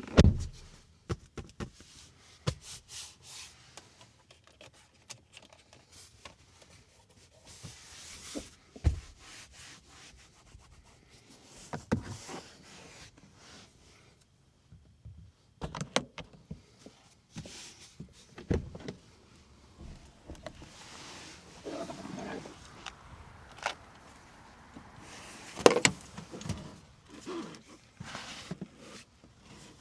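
Handling noises from a car's interior: scattered clicks and knocks on trim and controls, soft rubbing, and a handful of heavier thumps spread through, as of lids, panels or a door being moved and closed.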